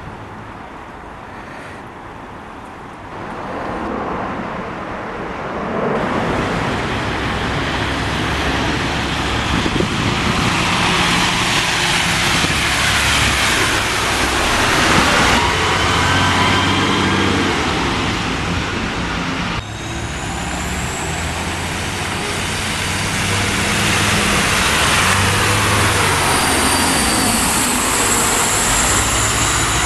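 Diesel double-decker bus engines running as the buses pull away and drive close past, with traffic noise. The sound grows louder a few seconds in and stays loud, with a thin high whine over the engine in the second half.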